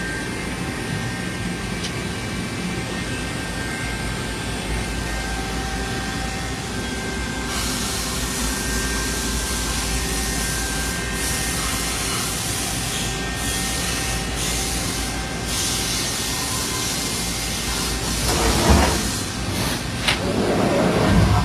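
Steady mechanical hum and hiss of running shop machinery, with a few faint steady tones. A louder noisy surge comes about eighteen seconds in, and another near the end.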